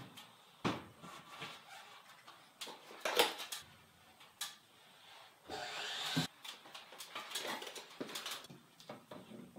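A 2x6 board being lifted and worked into place overhead as a door lintel: scattered wooden knocks and clatters, the loudest about three seconds in, and a short scrape of wood about six seconds in.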